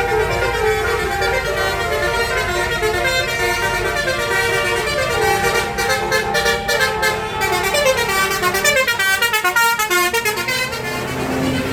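A tour bus's basuri telolet horn, a multi-trumpet air horn, playing a melody in stepped notes. Near the end the notes turn into fast runs. A steady low rumble runs underneath.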